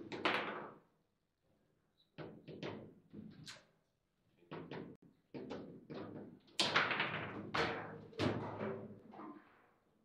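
Table football game: the hard ball cracking off the player figures and table walls and rods knocking, a quick irregular run of sharp knocks. A goal is scored within it.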